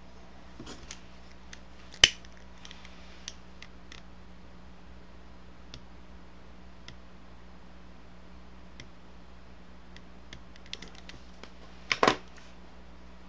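Small clicks and knocks from a hand handling a lighter and an incense stick, with one sharp click about two seconds in and a louder double knock near the end, over a steady low electrical hum.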